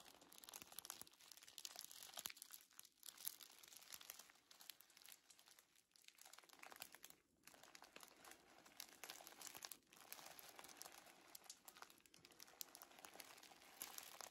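Tissue paper being crinkled and rustled by hand, a quiet crackling that comes in waves with a few short pauses.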